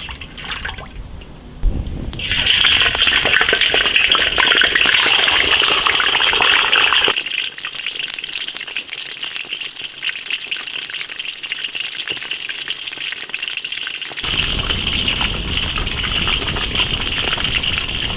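Whole fish frying in hot oil in a wok, a loud steady sizzle that starts with a knock about two seconds in. A low rumble under the sizzle drops out for several seconds in the middle and then returns.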